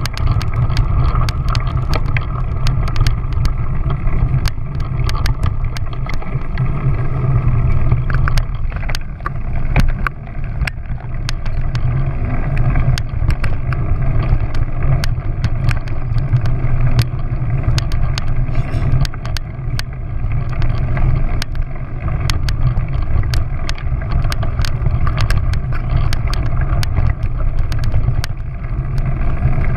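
Riding fast along a bumpy dirt track: a steady low rumble of wind buffeting and motion, with frequent sharp clicks and rattles as the mount jolts over the ruts.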